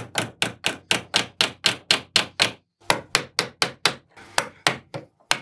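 Steel hammer striking in quick, even blows, about four a second, pressing a ball bearing into a plastic pulley housing that rests on a beech board. Partway through, the blows land on a steel punch held against the bearing. The run breaks off briefly twice.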